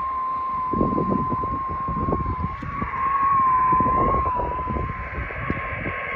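A steady single whistle-like tone from a radio receiver, wavering slightly in pitch: the beat note of a carrier received on the 122 GHz amateur band. Gusty wind rumbles on the microphone underneath.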